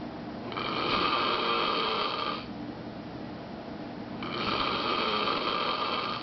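A man snoring very loudly: two long snores of about two seconds each, roughly three and a half seconds apart, with quieter breathing between them.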